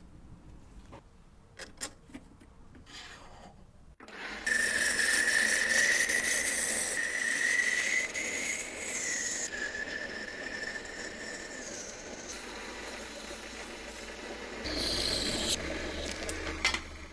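A small high-speed power tool running against a workpiece, a steady high whine over a rough rubbing rasp. It starts abruptly about four seconds in, after a few soft clicks, and stops shortly before the end.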